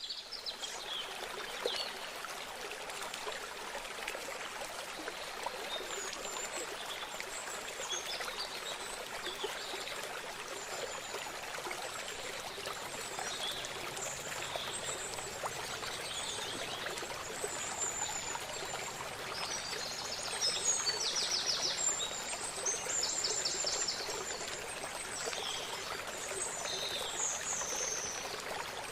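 River water flowing steadily, a continuous rushing and babbling. Birds chirp above it here and there, with quick trills a little over two-thirds of the way through.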